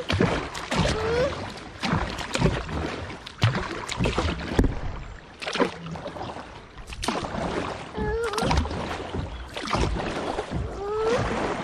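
Kayak paddle blades dipping and splashing into the river in a steady run of strokes, about one or two a second, as the kayak is paddled upstream against the current. A small child whimpers briefly a few times, about a second in, near the middle and near the end.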